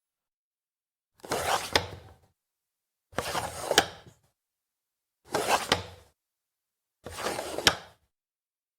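Cover of an old metal door peephole slid four times, each a slow, gritty scrape of about a second ending in a sharp metallic click.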